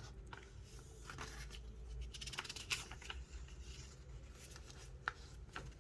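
Faint handling noises from over-ear headphones being turned over and their buttons felt for: light rustles and scattered small clicks, with a sharper click near the middle and another near the end.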